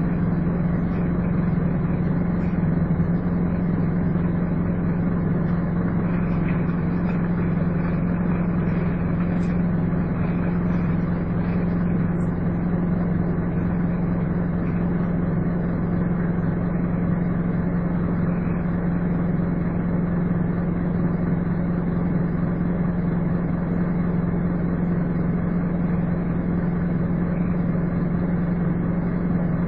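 Scania N230UD double-decker bus with a five-cylinder diesel engine, running steadily with the even, vacuum-cleaner-like hum that earns these buses the name "Hoover". The pitch holds steady throughout.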